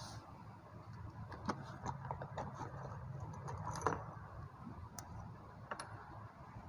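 A cloth wiping a chalkboard: faint rubbing with scattered light clicks.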